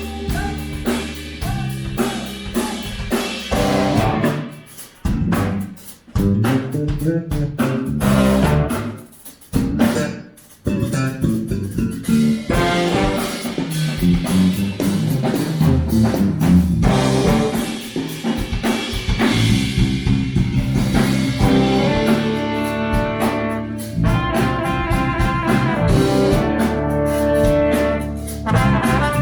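Live band playing a song on guitar and drum kit with brass, stopping together for two brief breaks about five and ten seconds in before carrying on.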